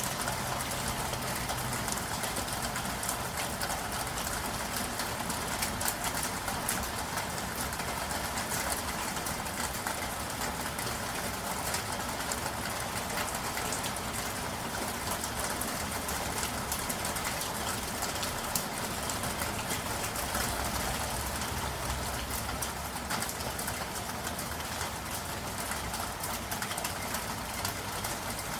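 Steady city rain: an even hiss of falling rain dense with small drop ticks, over a low, continuous hum of traffic.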